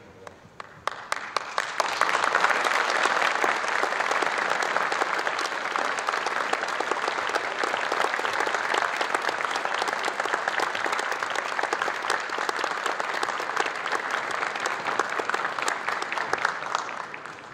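Audience applauding. The clapping builds up over the first two seconds, holds steady, then dies away near the end.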